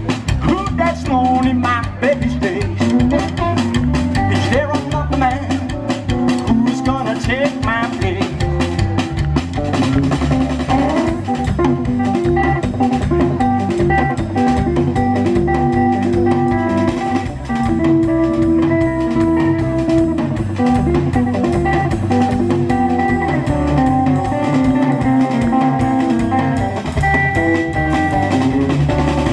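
Blues song in an instrumental break: guitar lead lines with bending notes over a drum kit beat, no singing.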